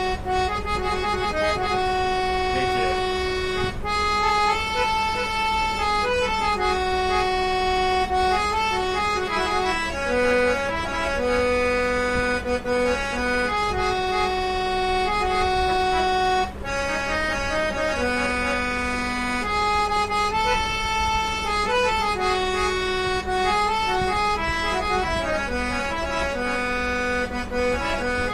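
Double-reed (two-line) portable harmonium with Jeevan Lal Rati Lal Mistri reeds, played as a slow melody of held notes over a steady low drone note.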